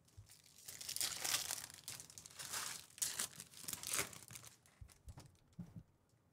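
Foil wrapper of a trading-card pack crinkling and tearing as it is opened and crumpled, in several bursts over about three seconds. A few soft knocks follow near the end.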